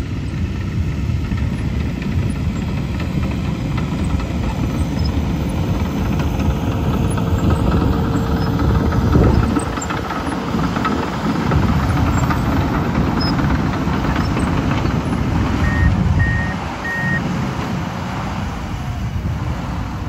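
Heavy diesel engines of a SANY single-drum roller and a Komatsu D51PXi crawler dozer running close by, a loud steady rumble. Three short backup-alarm beeps sound about three-quarters of the way through.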